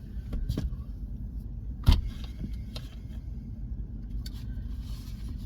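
A steady low rumble, with a few small clicks in the first second and one sharp knock about two seconds in.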